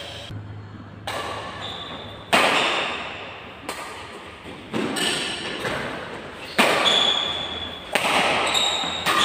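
Badminton rackets striking a shuttlecock in a doubles rally: about seven sharp cracks, one every second or so, each ringing on in the hall's echo.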